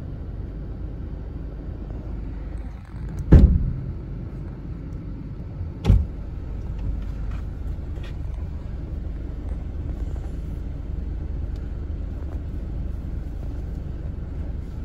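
Car driving over sand, heard from inside the cabin: a steady low rumble, with two loud thumps, one about three seconds in and another near six seconds.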